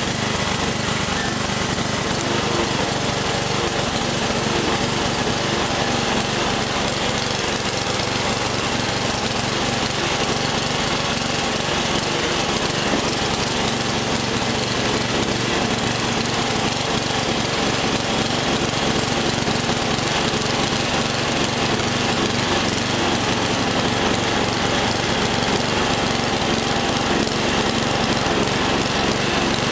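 Craftsman LT11/36 riding lawn tractor engine running steadily as the tractor drives across the lawn.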